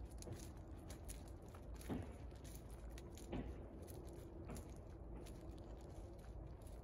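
A horse's hooves and a person's footsteps crunching on loose wood chips at a walk, an irregular patter of small crunches with a few louder ones.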